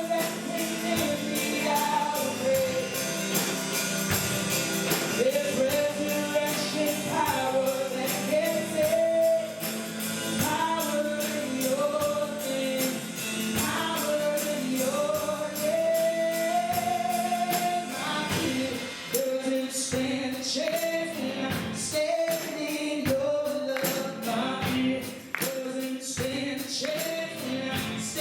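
Church worship music: singers carrying a gospel-style melody over a band with a steady percussion beat.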